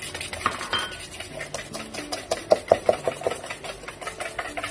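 Wire whisk beating a runny egg, sugar, maple syrup and melted butter filling in a stainless-steel bowl: rapid, rhythmic clinking of the wires against the metal, with a few louder strikes about halfway through.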